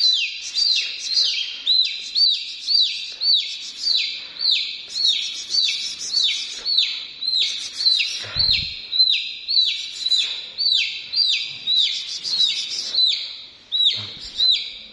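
A chick peeping loudly and without a break, a quick falling chirp about two or three times a second. A brief dull low thump about eight seconds in.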